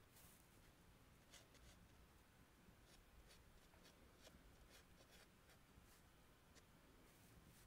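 Faint scratching of drawing chalk on rough, textured paper: short, irregular strokes as a figure is sketched.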